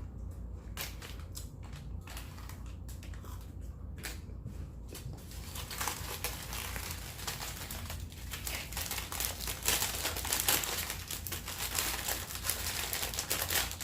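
Lay's potato chip bag being handled and crumpled. There are a few separate crackles at first, then steady crinkling from about five seconds in, getting louder toward the end.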